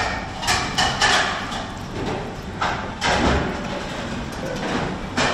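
Metal spoon knocking and scraping against a ceramic rice bowl while stirring raw egg into rice, a handful of separate clinks and scrapes.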